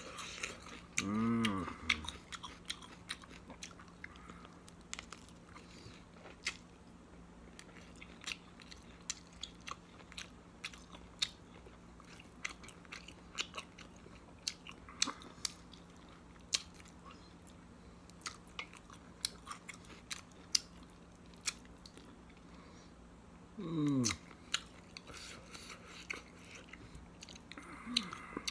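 Close-up chewing and mouth smacking of someone eating rice and curry by hand, with many small wet clicks of lips and tongue. Twice, about a second in and again near the end, a short voiced hum with a sliding pitch breaks through. A faint steady electrical hum sits underneath.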